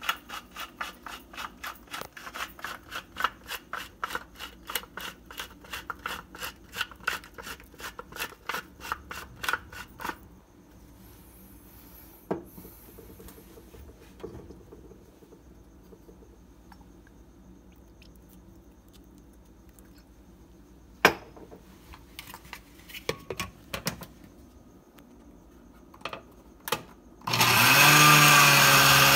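Pepper mill grinding black pepper, a quick run of crunchy clicks about four a second for about ten seconds, then a few scattered knocks. Near the end a blender motor starts with a rising pitch and settles into a loud, steady run as it begins blending the salsa.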